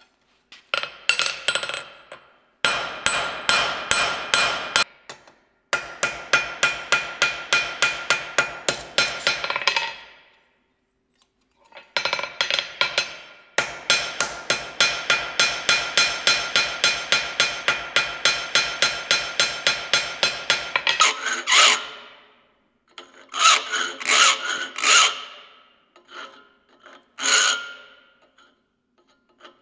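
Steel being worked by hand: two long runs of quick, ringing metal strokes, a few a second, then, near the end, a hand file rasping in short strokes over a small steel piece clamped in a bench vise.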